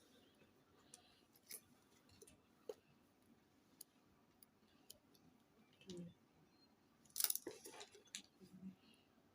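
Faint clicks and light knocks of plastic containers and utensils being handled while thick homemade conditioner is bottled, with soft thumps about six seconds in and near the end, and a short clatter of sharper clicks about seven seconds in.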